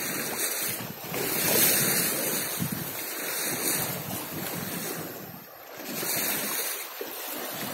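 Wind buffeting the microphone over the rush and splash of sea water, the noise swelling and easing without any steady engine tone.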